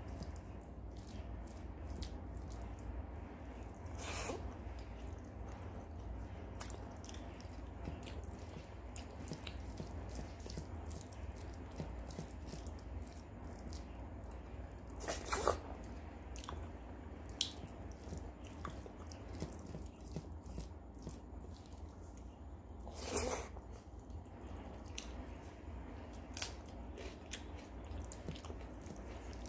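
Eating with the fingers: wet squishing as rice is mixed with spinach curry and dal on a steel plate, with chewing and lip smacking making a run of soft clicks and a few louder smacks, over a steady low hum.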